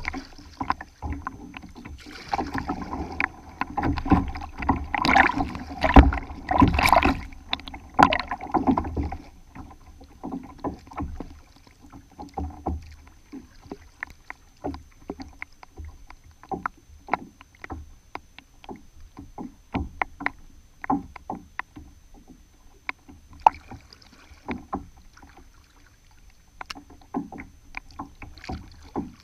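Lake water lapping and slapping against a kayak hull right at the microphone, with many small sharp splashes and drips. The splashing is louder for several seconds near the start, then settles to scattered light slaps.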